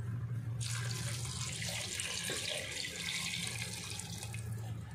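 Hot water poured in a steady stream from a steel vessel into a pot of chicken pieces, starting about half a second in and stopping near the end, over a low steady hum.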